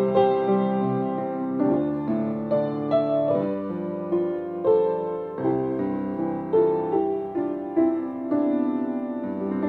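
Acoustic grand piano played at a slow, gentle pace: sustained chords under a melody, a new note struck about every half second to second, each ringing on and fading.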